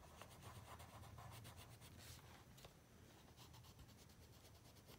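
Faint scratching of a colored pencil shading on paper in quick, even back-and-forth strokes.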